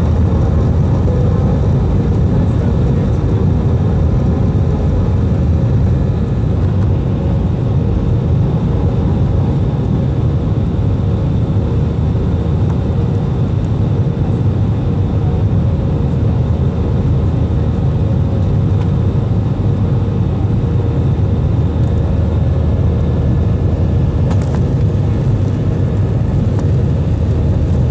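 Cabin noise of an Airbus A320 climbing after takeoff, heard beside the wing: a steady, loud roar of jet engines and rushing air, heaviest in the low end, easing slightly about six seconds in.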